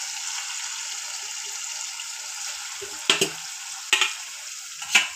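Masala paste frying in oil in a steel pot, a steady sizzle: the paste has been cooked until the oil separates. In the second half come three sharp knocks, about a second apart.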